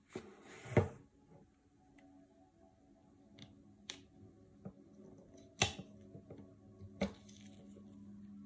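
Packaging being opened by hand: a cardboard sleeve sliding off a shrimp tray with a scraping rustle about a second in, then a few sharp clicks and crinkles as the clear plastic film lid is worked loose and peeled back.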